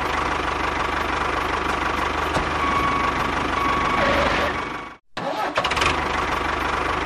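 Tractor engine running steadily. It cuts out abruptly about five seconds in and starts up again a moment later.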